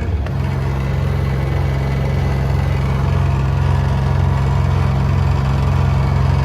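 An engine running steadily with a low hum that steps up to a higher, steady speed just after the start.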